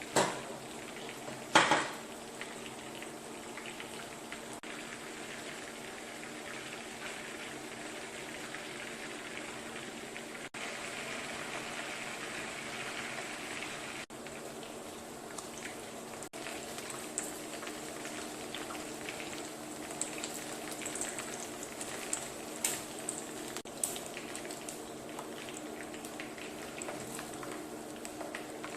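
Battered chicken deep-frying in hot oil: a steady bubbling sizzle with scattered small pops and crackles. Two sharp knocks stand out within the first two seconds.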